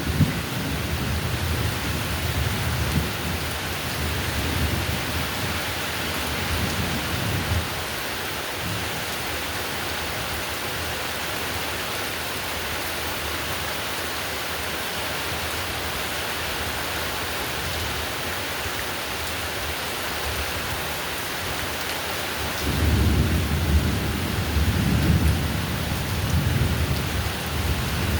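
Heavy rain falling steadily, with deep rolling thunder rumbling through the first several seconds, fading out, and a new roll of thunder building near the end.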